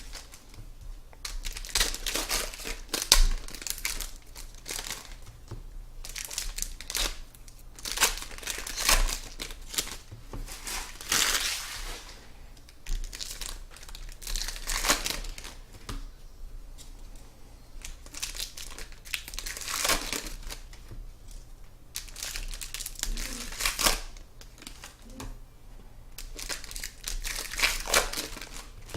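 Plastic wrapping on trading-card boxes and packs crinkling and tearing in irregular bursts as it is pulled open by hand.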